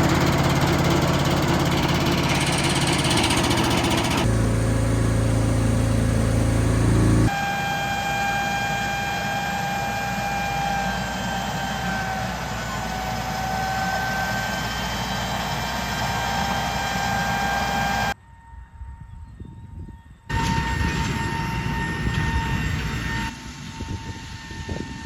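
Engines of farm machinery running in a series of short cut-together clips. A heavy low engine sound comes first, then a steady high-pitched whine over the engine for about ten seconds, then quieter running.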